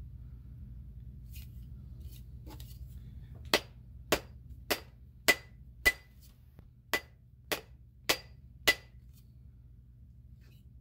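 A mallet striking the end of a wooden hatchet handle nine times in a steady rhythm, with a short pause after the fifth blow, driving the half hatchet head further onto the new handle. Each blow is a sharp knock with a brief ring.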